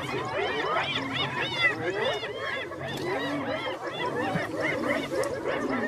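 A pack of spotted hyenas squabbling at a kill: many high calls at once, each rising and falling, overlapping into a continuous chatter.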